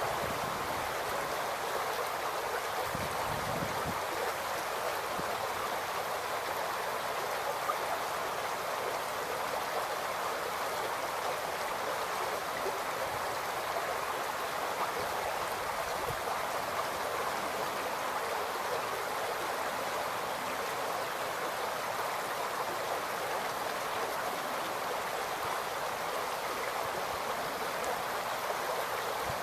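Shallow creek babbling steadily over stones and rocks.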